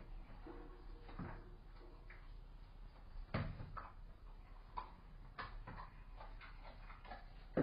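Irregular faint knocks, taps and rustles, with a sharper knock about three seconds in and a sharp knock near the end, over a steady low mains hum.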